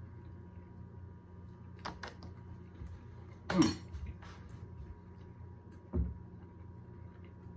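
Light clicks and knocks of metal spoons and hands against a kitchen counter, over a steady electrical hum. There are a couple of small clicks about two seconds in, a sharper clatter about three and a half seconds in, and a dull thump on the counter about six seconds in.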